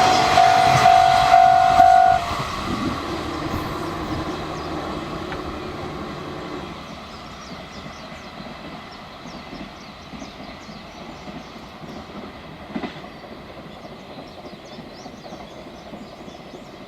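Container freight train's wagons rolling past on the rails and receding, the wheel clatter fading steadily. The level crossing's warning bell rings at the start and cuts off about two seconds in.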